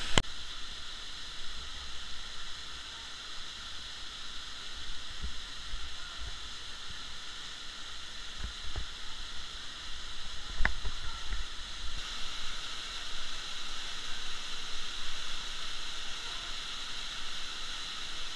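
Steady rushing of a river and waterfalls in a rock canyon, with a few dull knocks, the sharpest about ten seconds in.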